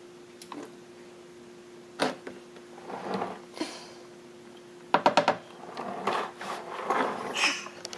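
Hand tools knocking and clicking under a car during an oil change: scattered knocks and rattles, with a quick run of about six clicks about five seconds in, over a faint steady hum.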